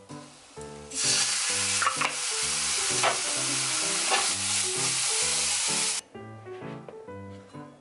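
Loud sizzling from food frying in a hot frying pan as dark sauce goes in among the pieces, with a few short scrapes of stirring. It starts suddenly about a second in and cuts off abruptly about six seconds in.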